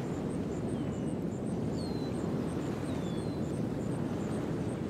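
Sea surf washing steadily onto the rocks and shore. Faint high ticks repeat about three times a second, and now and then a short falling high whistle sounds.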